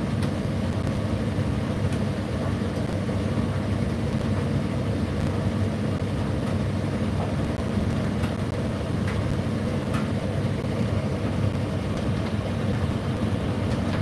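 Indesit IDC8T3 condenser tumble dryer running mid-cycle: a steady hum of the drum motor and fan, with a few faint, irregular clicks.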